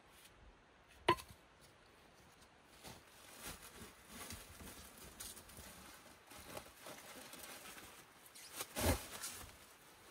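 Clear plastic stretch-wrap sheeting rustling and crinkling as it is handled and hung on a pole frame, with a sharp knock about a second in and a louder crackle near the end.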